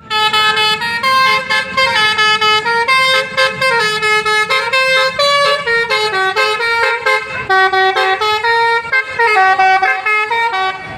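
Basuri musical bus horn, a multi-note 'telolet' air horn, playing a quick melody of short stepped notes that rise and fall in pitch without a break.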